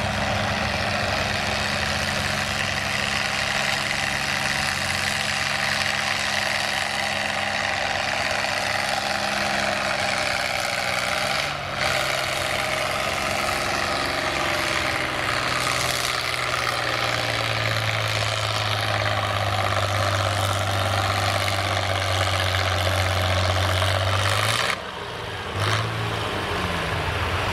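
Diesel engines of farm pulling tractors running at a steady speed, the loudness dipping briefly about twelve seconds in and again for about a second near the end.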